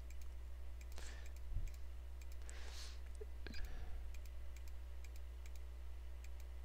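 Faint computer mouse clicks at irregular intervals, with a steady low electrical hum underneath.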